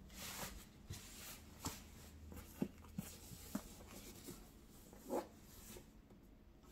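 Soft rustling of a cloth dust bag being slid off a backpack by hand, with a few light knocks and clicks from handling the bag.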